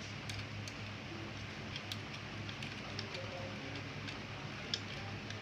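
Scattered small clicks and ticks of a screwdriver and wire being worked into a screw terminal on an electrical socket, over a low steady hum.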